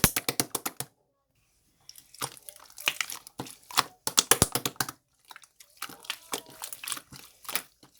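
Slime being squished, stretched and pressed by hand: a steady run of sticky clicks and small wet pops, stopping briefly about a second in before starting again.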